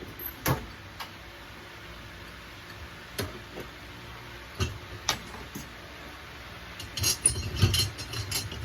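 Metal knocks and clinks as the crucible is pulled off a freshly cast silver belt buckle while it is still hot: a handful of single knocks, then a burst of clattering near the end, over a steady low hum.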